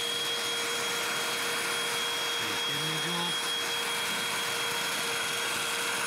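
Hoover Ultra Light Cordless Cruise vacuums, used as handhelds with crevice tools, running steadily as they suck up dry debris off a tabletop. A constant rushing hiss with a steady whine over it.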